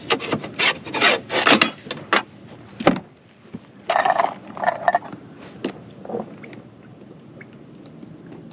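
Gear being scraped, rubbed and knocked against a boat's hull and deck: a quick run of rubbing strokes and knocks in the first three seconds, two short squeaky scrapes a little after four seconds, then a few light ticks.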